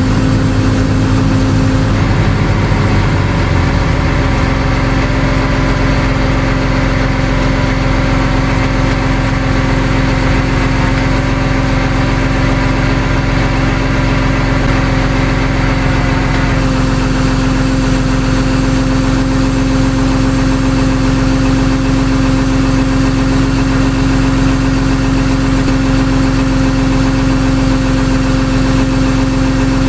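Truck engine idling steadily, its tone shifting slightly about two seconds in and again about halfway through.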